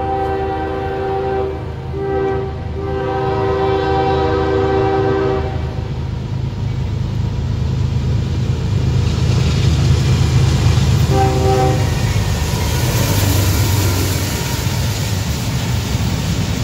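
Diesel freight locomotive's air horn sounding a long, a short and a long blast, the end of the grade-crossing signal, then a brief toot near the middle. The locomotives rumble by and the train's cars follow with a steady, rising rush of wheel and rail noise.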